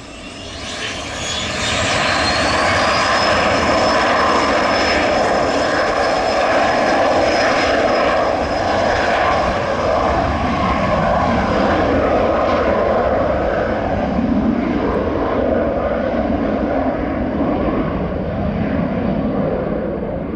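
Learjet 75 business jet's twin Honeywell TFE731 turbofans spooling up to takeoff power: a high whine climbs in pitch over the first few seconds as the engine noise swells. The engines then run loud and steady, with the whine held, through the takeoff roll.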